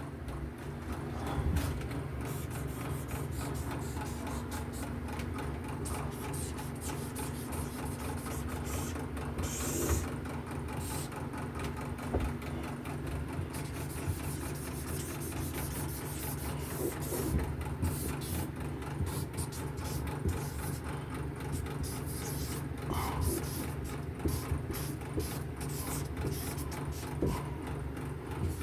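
A machine whirring steadily: a low hum with a fast, even pulse, with a few faint knocks over it.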